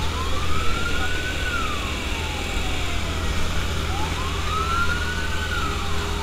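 Fire truck siren wailing in slow cycles, each rising for about a second and then falling slowly over about three, twice, over a steady low rumble.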